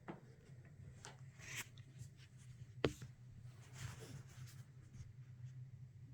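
Faint scattered knocks and scuffs over a steady low hum, with one sharper knock about three seconds in.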